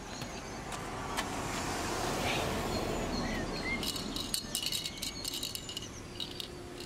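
A car passing on the road, its tyre and engine noise swelling to a peak a couple of seconds in and then fading. It is followed by a rapid high clicking or jingling for a couple of seconds, with a few short bird chirps.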